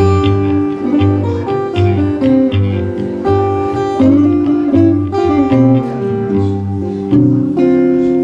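Acoustic blues guitar playing an instrumental break, with a steady repeating bass note under bent treble notes.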